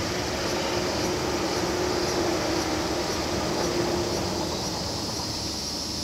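JR 115 series electric multiple unit running past, a steady rumble of wheels and motors with a held hum that ends about four and a half seconds in. Cicadas shrill steadily throughout.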